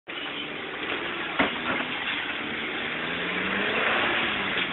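Vehicle engine running, heard from inside the cabin, its pitch rising slightly near the middle, with one sharp knock about a second and a half in.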